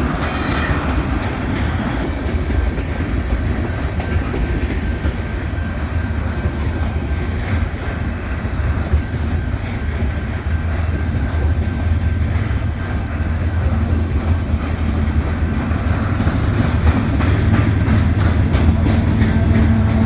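Freight train rolling past: steady rumble of the wheels on the rails with clickety-clack over the rail joints, growing a little louder toward the end, where a low droning tone comes in.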